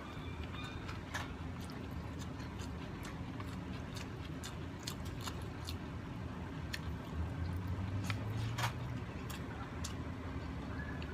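Close chewing of rice and shrimp, with many short wet mouth clicks and smacks. A steady low rumble runs underneath and swells for a couple of seconds about seven seconds in.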